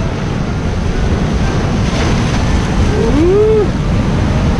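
Heavy surf breaking on a rocky shore, with wind rumbling on the microphone.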